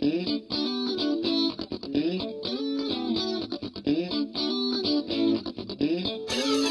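Music led by an electric guitar playing quick, repeating melodic runs. About six seconds in, a bright hiss joins the guitar.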